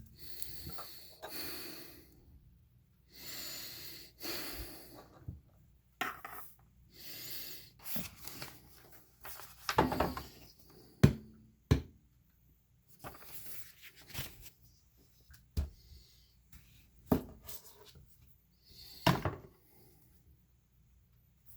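Heavy, exaggerated breathing, one loud hissing breath after another, broken by several sharp knocks and clatters, the loudest about eleven seconds in.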